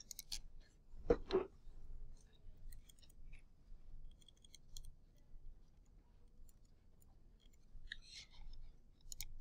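Faint, scattered clicks of a computer mouse and keyboard, with two louder taps close together about a second in.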